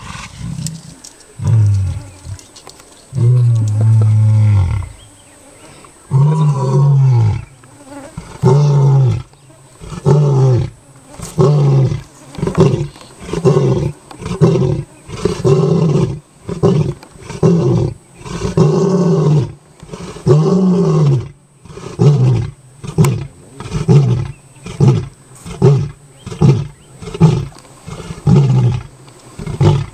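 Lion roaring bout. It opens with a few long, low roars, the longest lasting nearly two seconds. Then comes a run of short grunting roars, about one a second, that grow shorter toward the end.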